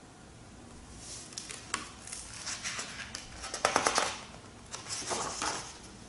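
Pages of a picture book being turned and the book handled: paper rustling with soft clicks, in several short bursts.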